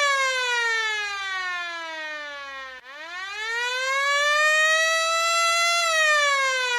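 Air-raid siren wailing: its pitch slides down for nearly three seconds, climbs back up over the next three, and begins to fall again near the end.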